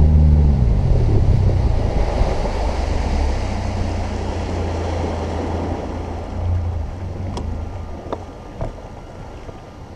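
Boat motor dropping in pitch as it throttles back, then a low hum and rushing water against the hull that slowly fade as the boat slows. A few sharp clicks come near the end.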